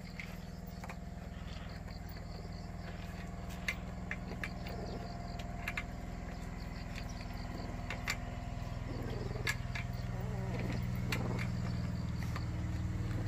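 Newborn white puppies squirming in a pile, giving faint whimpers and small scratching clicks, over a steady low hum that grows louder in the second half.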